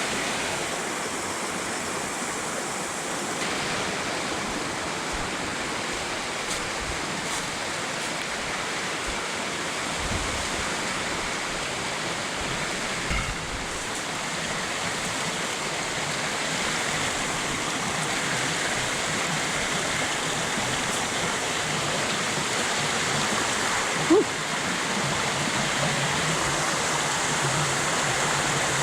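Small waterfall and creek water pouring and rushing steadily, with one brief sharp knock near the end.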